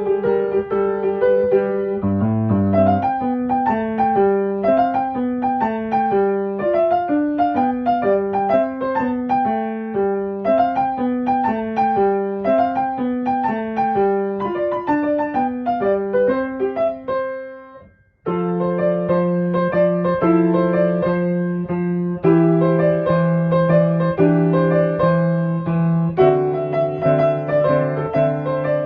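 Piano music with runs of notes that climb and fall. About two-thirds through it fades out briefly, then starts again with steadier held chords.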